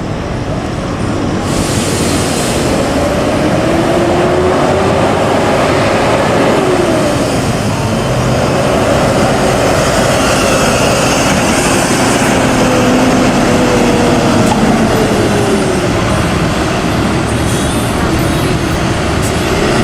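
Engine and road noise heard while riding aboard an odong-odong, a road-going tourist trolley. The engine note rises and falls a few times as the vehicle speeds up and slows, over a steady loud rumble of road and wind.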